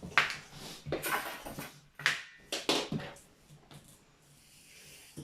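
A series of short scraping and rustling strokes from marking out and handling a sheet of board against a template on the workbench.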